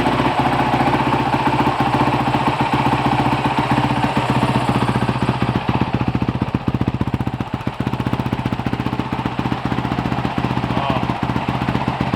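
2019 Honda CRF450L's single-cylinder four-stroke engine idling through a newly fitted FMF full exhaust (stainless header and Q4 slip-on), a rapid, even beat of exhaust pulses just after start-up.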